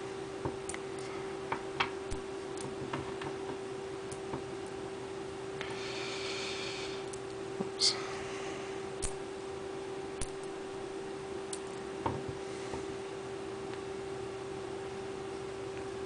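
Small neodymium ball magnets clicking and snapping against each other as bridges of magnets are pulled off a large ball-magnet structure: scattered sharp clicks, one louder snap about eight seconds in, over a steady hum.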